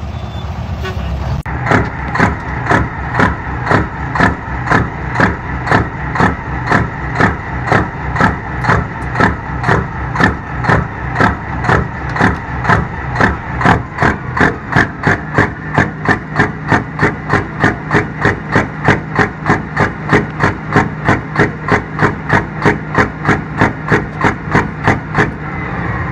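A semi truck's engine running steadily. About a second and a half in it gives way to a big rig with tall chrome straight stacks, its exhaust pulsing in a very even beat a little over twice a second.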